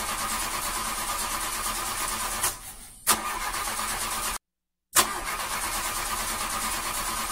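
Car engine cranking over on its starter without catching, in steady spells. About three seconds in it fades and resumes with a click, and it cuts out briefly just past the middle.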